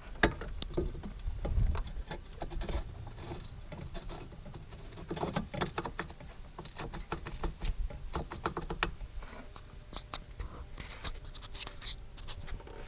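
Irregular clicks, taps and light knocks, like things being handled and set down, with a small bird chirping repeatedly in the background during the first few seconds.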